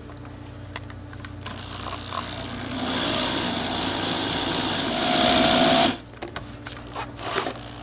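Electric drill spinning a paddle mixer in a plastic bucket, mixing two-part pool joint sealant. It starts about a second and a half in, speeds up about three seconds in, and stops abruptly about six seconds in.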